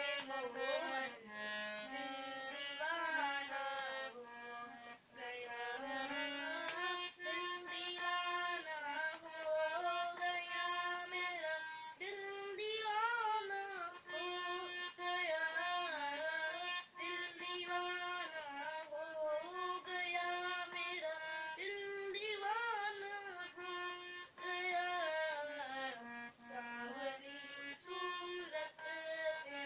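Harmonium playing a Krishna bhajan melody in held, stepping notes, with a boy's voice singing along in gliding ornamented lines.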